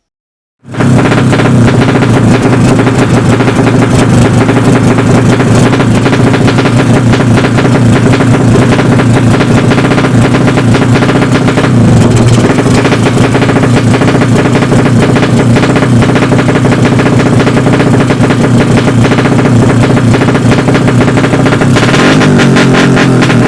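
Engine running hard at steady high revs, very loud and distorted, starting abruptly under a second in.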